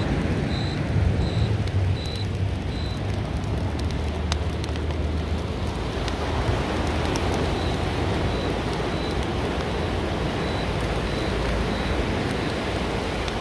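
Outdoor garden ambience: a steady hiss with a low rumble underneath, and a short high-pitched chirp repeating about every 0.7 seconds that fades after about three seconds and comes back faintly later.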